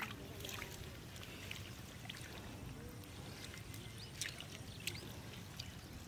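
Faint wet squelches and scattered clicks of a hand probing down into a muddy eel hole, over a low steady rumble.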